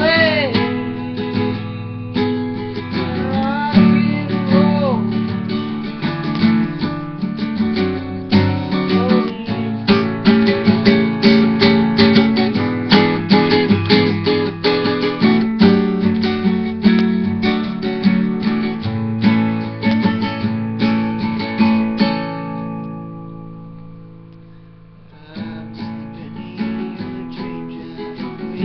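Classical acoustic guitar strummed in a steady rhythm. Near the end the chords are left to ring and fade for a few seconds before the strumming starts again.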